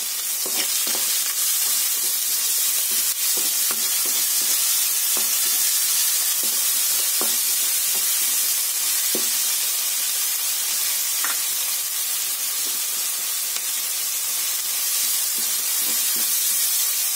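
Sliced onions sizzling steadily in hot oil in a steel kadai, stirred with a wooden spatula that scrapes and knocks lightly against the pan now and then.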